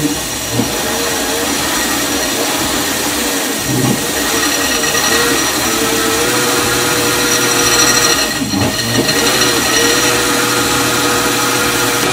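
TAKING TK-802 bell-knife leather skiving machine running and shaving down the edge of a vegetable-tanned leather strip as it is fed through. It gives a steady motor whine over a hiss, the whine wavering slightly in pitch as the leather passes the knife.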